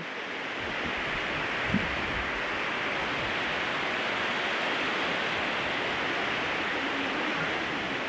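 Steady rushing roar of Manthokha Waterfall's falling water, an even hiss-like noise that holds at one level throughout.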